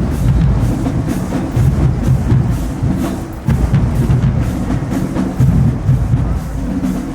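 Marching band drumline playing a cadence: bass drums pounding under crisp snare and stick clicks in a steady march rhythm.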